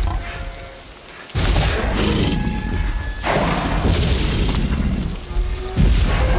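Film sound effects of a Tyrannosaurus rex breaking out: a series of deep booms and crashes for its footsteps and impacts, built from sonic booms and sections of a falling redwood tree. There is a brief lull about a second in before the next heavy boom.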